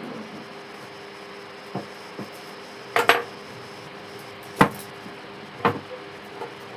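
A series of sharp metallic clanks and knocks, as of metal tools or fan parts being handled and set down. The loudest is a quick double clank about three seconds in. A steady low hum runs underneath.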